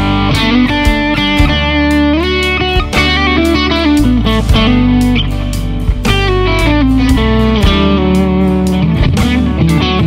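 Electric guitar with humbucker-sized P90 pickups played clean through a chorus effect. It plays melodic lines with sliding notes over sustained low notes.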